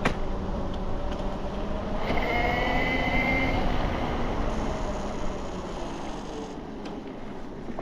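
Riding noise of a 72V BBSHD mid-drive electric bike, with steady wind and tyre rush. A high motor whine sounds from about two seconds in for over a second, and the rush eases off toward the end.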